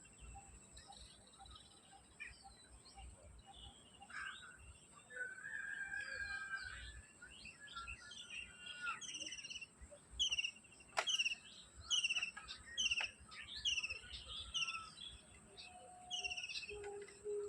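Birds calling outdoors. One bird repeats a short, falling, high chirp about once a second, and others chirp around it.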